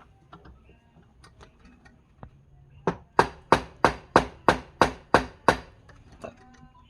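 Nine sharp, evenly spaced hammer blows, about three a second, starting about three seconds in. Light clicks and knocks come before them.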